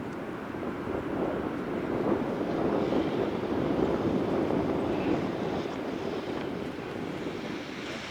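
H0-scale model train, a Roco BR 01 steam locomotive pulling its coaches, rolling along the track with a steady rumble that grows louder for a few seconds and then eases.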